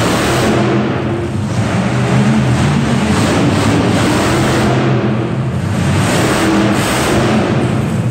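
A monster truck's engine revving up and down repeatedly under hard throttle as the truck drives.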